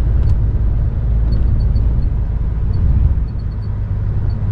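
Tractor-unit truck's diesel engine running under way, a steady low rumble heard from inside the cab along with road noise. It eases off slightly about three seconds in.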